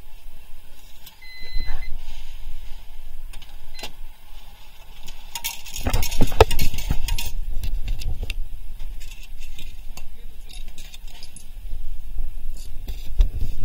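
Ticket vending machine at work: a short electronic beep as a button is pressed about a second in, then a loud rattling burst about six seconds in as the tickets are issued, followed by scattered metallic clinks as change coins come out, all over a low rumble.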